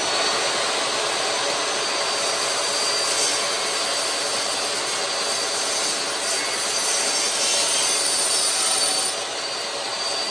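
DeWalt compact jobsite table saw with a 15-amp motor running at speed, its blade ripping through a thin board. A steady, dense whine and cutting noise.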